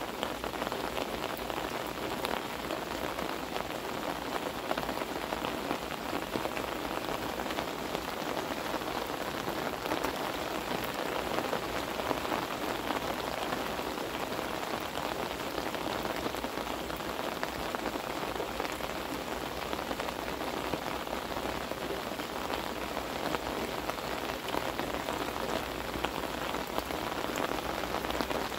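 Heavy rain pouring steadily, a dense, even patter of many drops.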